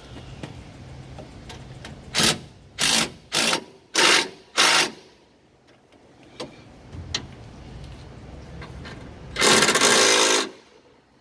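A power wrench driving a bolt: five short trigger bursts in quick succession, then one longer burst of about a second near the end, likely as the axle-shaft damper's mounting bolts are run in.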